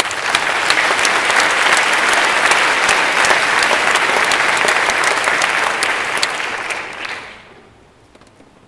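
Audience applauding: dense clapping from many hands that dies away about seven seconds in.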